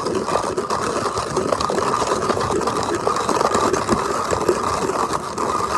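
Vintage coffee grinder grinding coffee beans quickly: a steady, dense crunching and rattling made of many small rapid clicks.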